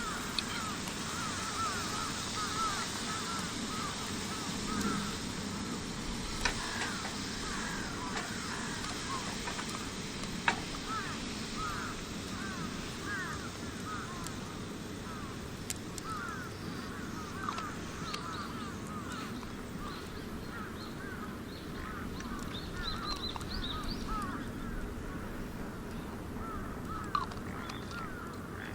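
Many short chirping calls repeat throughout over a steady hiss from the wood campfire, with two sharp crackling pops about six and ten seconds in.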